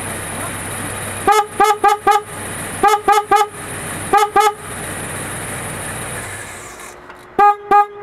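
The horn of a 2010 Toyota Tacoma tooting in groups of short blasts: four quick toots, then three, then two, and near the end a louder run of toots. Under the toots there is a steady high whine and a low hum that stop about seven seconds in. The owner finds the horn odd and says it only does this when it's cold.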